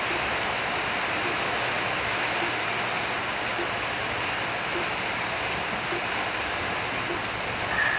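Steady, even hiss of background noise, with faint soft ticks about once a second.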